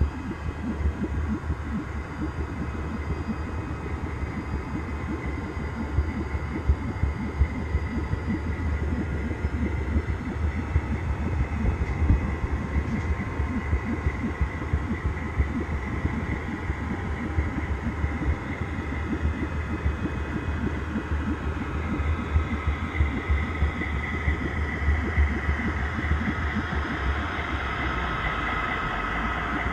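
Model train rolling along the track, heard from a camera car riding in the train: a steady clattering rattle of wheels over the rails with a low motor hum and frequent sharp clicks at rail joints. A high whine grows louder over the last several seconds.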